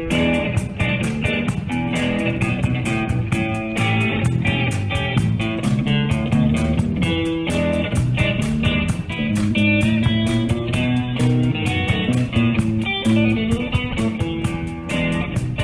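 Background music: guitar-led, bluesy track with a steady beat.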